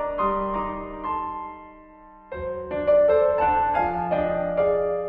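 Slow piano music: phrases of struck, held notes that ring and fade. One phrase dies away and a new one begins about two seconds in.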